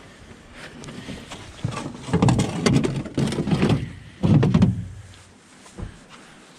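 Clattering, knocking and scraping as a john boat and its gear are handled for loading into a pickup truck bed, in two loud stretches about two and four seconds in.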